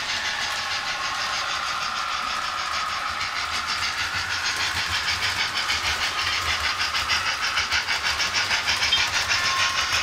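Model train running on the layout's track, its wheels clicking over the rail joints in a quick, even rhythm over a steady high whine, growing louder as it approaches.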